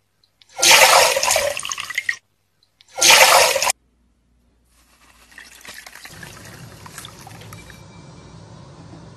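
Water splashing in two loud bursts, then quieter wet trickling and swishing.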